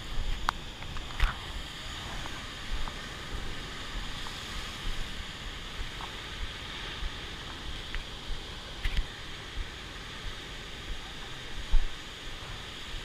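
Ocean surf breaking and churning against rocks, a steady rushing wash of white water, with scattered low thumps of wind buffeting the microphone.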